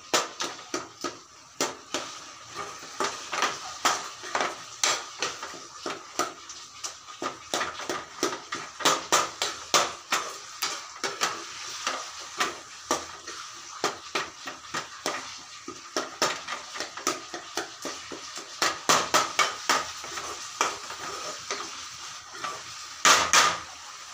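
Metal kitchenware clattering: many irregular knocks and clinks, several a second, with a louder run of them near the end and a faint steady high hum underneath.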